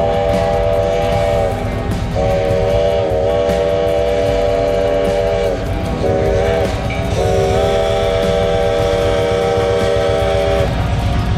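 Steam locomotive's chime whistle sounding a chord of several tones: the end of one long blast, then a long, a short and a long blast, the long-long-short-long pattern of a grade-crossing signal. A steady low motorcycle engine rumble runs underneath.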